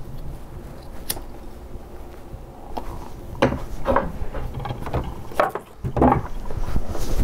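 Handling sounds at a wooden dresser: a sharp click about a second in, then four or five dull knocks and bumps about half a second to a second apart.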